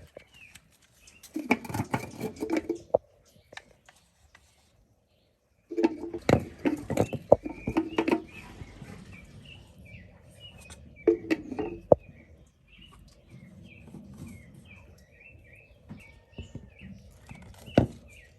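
Knocks and clicks of plastic plumbing fittings being handled and screwed together as a 2-inch air valve is fitted onto a pond outlet. Small birds chirp in the background through the second half. The sound drops out briefly near the start.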